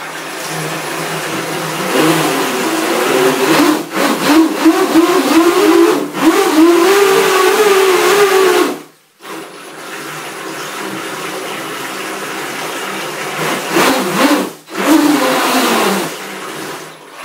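Twin brushless motors and propellers of a converted Double Horse 7000 RC toy speedboat running in a bathtub, churning the water. The motor whine rises and falls in pitch with the throttle, and the motors stop briefly about nine seconds in and again near fifteen seconds.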